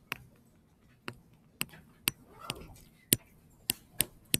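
Stylus tip clicking against a tablet touchscreen as letters are handwritten: about eight sharp, irregular taps, with a softer scratch of a pen stroke about halfway through.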